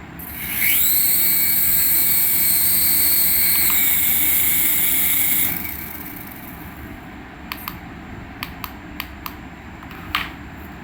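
Remote-control toy aircraft whining: a high whine rises over about half a second, holds steady for about five seconds, then dies away. Several light clicks follow near the end.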